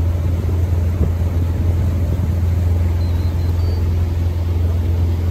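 Motorboat engine running steadily as the boat travels under way, a constant low drone.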